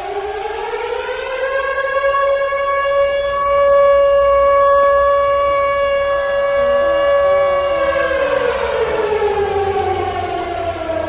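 Civil defense siren wailing: its pitch rises for about two seconds, holds steady for about five, then falls away near the end.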